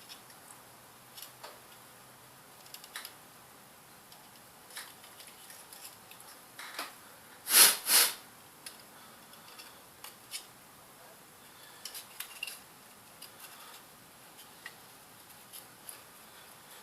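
Small clicks and taps of laptop parts being handled as a new cooler fan is set in place over the heatsink, with two louder, longer noises close together about halfway through.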